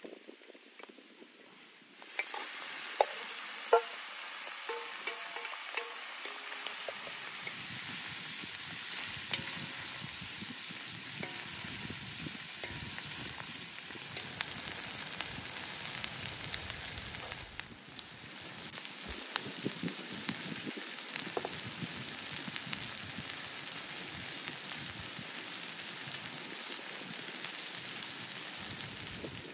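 Chopped offal, potatoes and onions frying in a large black pan over a fire, a steady sizzle that starts about two seconds in. Two sharp clicks sound soon after it starts.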